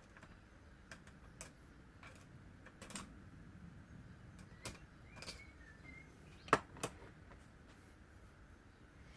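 Scattered light clicks and taps of hand tools on the metal parts of a VW steering lock and ignition barrel being taken apart, with two sharper clicks close together about two-thirds of the way through.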